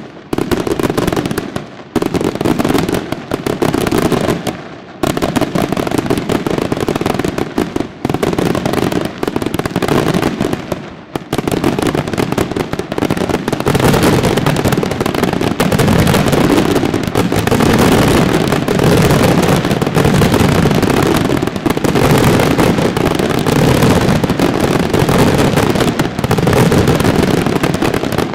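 Aerial fireworks display: rapid volleys of shell bursts and crackle, with a few short lulls at first, building about halfway through into an unbroken, louder barrage.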